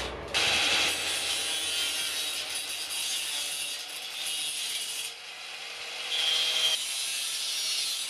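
Angle grinder running with its disc grinding against steel wire mesh, a hissing grind that starts abruptly just after the beginning, dips about five seconds in, and grows louder with a high squeal shortly after six seconds.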